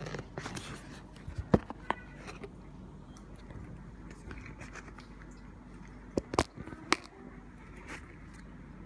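Cardboard box being opened by hand, its flaps giving a few sharp clicks and knocks, the loudest about a second and a half in and a cluster around six to seven seconds in, over a faint steady hiss.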